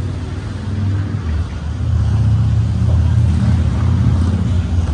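Superyacht's diesel engines running during a stern-to docking manoeuvre, a steady low rumble that grows louder about two seconds in.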